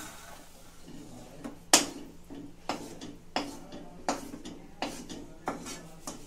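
Wooden spatula scraping and knocking against a steel kadhai while scooping stir-fried vegetables out of it. About seven sharp knocks, roughly one every 0.7 s, with the loudest about two seconds in.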